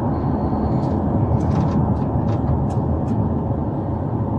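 Steady engine and road rumble of a police patrol car heard from inside the cabin, with a brief faint high tone near the start and a few light clicks around the middle.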